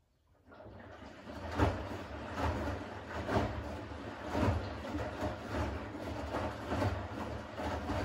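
Siemens front-loading washing machine's drum starting to turn during the rinse cycle, with a low motor hum and wet laundry and water sloshing in surges about once a second.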